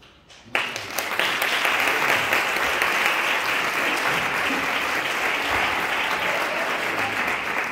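Audience applauding, starting suddenly about half a second in and holding steady and loud.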